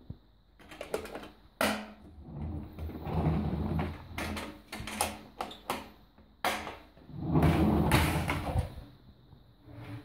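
Plastic lid of a 1987 Alfatec wet & dry vacuum cleaner being set on its metal canister and its side latch clipped shut, with the motor not running: a string of sharp knocks and clicks with two longer spells of rubbing and scraping, the louder one near the end.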